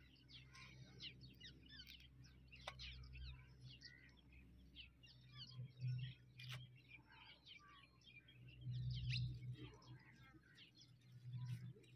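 Faint birdsong: many small birds chirping and twittering in quick, short calls. A low hum swells up a few times underneath.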